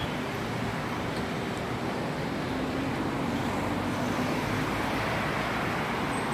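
Steady road traffic on a busy multi-lane city street: cars and buses passing.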